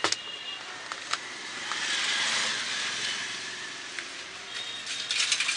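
Electric mosquito-killer racket being spark-tested with a metal tool against its charged mesh: sharp snapping sparks, a stretch of crackling hiss in the middle and a quick cluster of snaps near the end. The high-pitched whine of its voltage circuit stops about half a second in and returns near the end.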